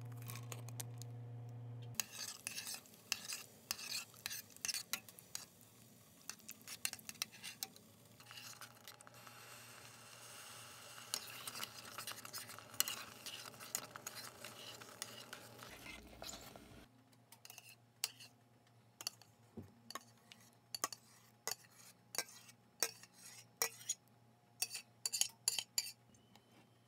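A spoon stirring thick rice congee in a pot, scraping and clinking against the pot's sides with many quick taps. Later come sharper, separate clinks as the congee is scooped and served into a bowl.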